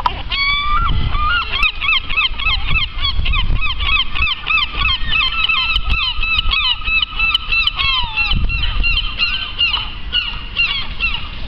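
Gulls calling in a fast run of short, repeated high cries, about four a second, tailing off near the end.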